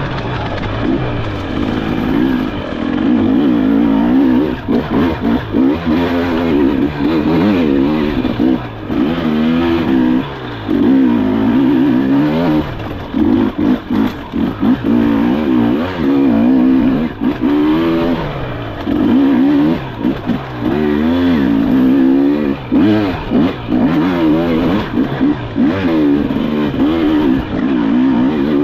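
Enduro dirt bike engine under race load, its pitch constantly rising and falling as the throttle is opened and shut, with frequent brief dips where the throttle is chopped.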